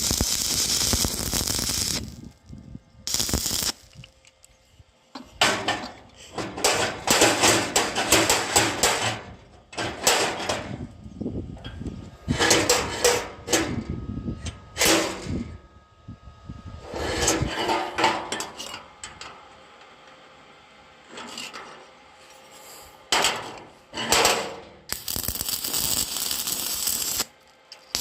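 Hand metalwork on an iron door bolt latch: repeated bursts of metal sliding, scraping and clanking, broken by short pauses, with a steadier stretch of noise near the start and again near the end.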